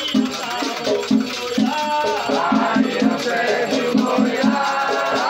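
Batuque ritual music: a drum keeps a steady beat of about three to four strokes a second while rattles are shaken and voices sing a chant over it.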